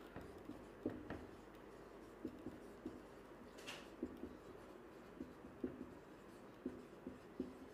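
Marker pen writing on a whiteboard: faint, irregular short squeaks and scrapes as each letter stroke is drawn.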